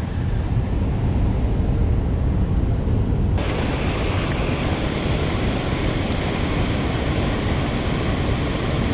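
Steady roar of water pouring through a dam's release into the tailwater. About a third of the way in the noise suddenly turns brighter and more hissy, and stays that way.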